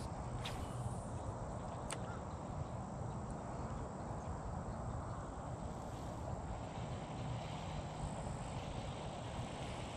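Steady outdoor background noise: a low hum under an even hiss, with a couple of faint clicks in the first two seconds.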